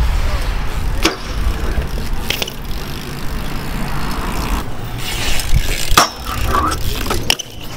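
BMX bike riding on a hard surface: a steady rumble of tyres rolling, broken by several sharp knocks and clatters from landings and the bike's parts striking.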